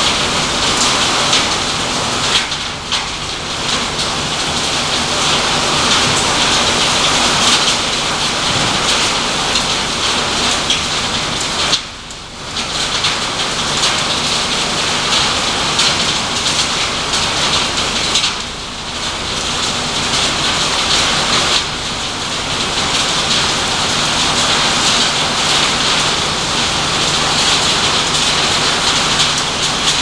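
Refrigerator shredding and crushing line running: a loud, dense clatter over a steady low motor hum, dipping briefly a few times.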